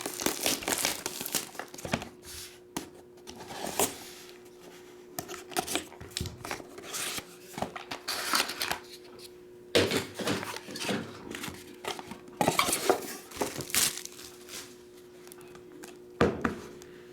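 A sealed trading-card box and its packs being opened by hand: wrappers crinkling and tearing, with scattered clicks and clacks of cardboard and cards. A faint steady hum runs underneath.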